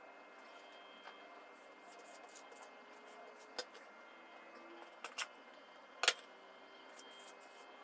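Faint scraping and a few light clicks and knocks of a kitchen utensil against a plate and a cream bowl while whipped cream is spread on crepes. The sharpest knock comes about six seconds in.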